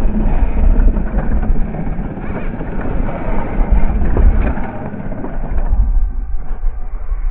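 Small RC crawler driving over loose rocky dirt, its motor and tyres on gravel mixed with heavy wind rumble on the microphone. The sound thins briefly near the end.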